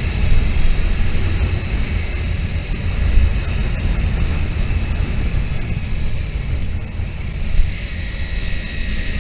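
Wind buffeting the onboard microphone of a motorcycle in motion, with the bike's engine and road noise running steadily underneath.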